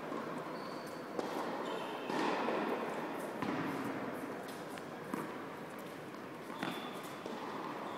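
Tennis ball struck with a racket and bouncing on an indoor court, a few sharp echoing pops, about a second in, after five seconds and again a second and a half later, over the steady background din of a large tennis hall.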